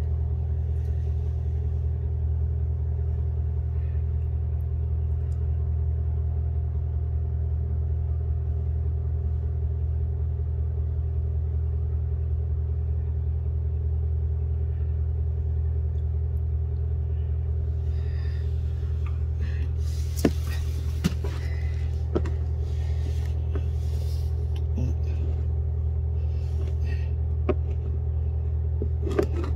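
A steady low mechanical hum with a fainter steady tone above it, like a motor or appliance running. A few sharp clicks and rustles come in about two-thirds of the way through and again near the end.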